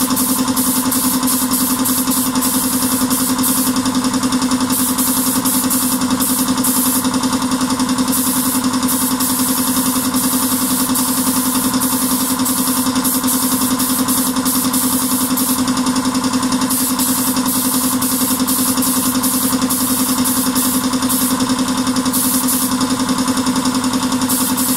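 A machine running steadily with a constant hum and an even hiss, the same all the way through, unaffected by the spray gun starting and stopping.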